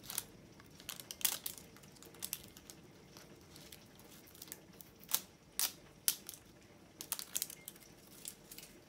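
Thin plastic wrapping crinkling and tearing as it is peeled by hand off a small plastic toy ball, in irregular crackles.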